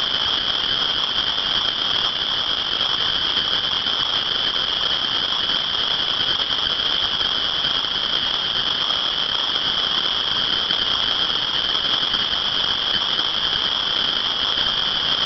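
Dense chorus of many frogs calling at once, a steady, high-pitched, deafening din that does not let up.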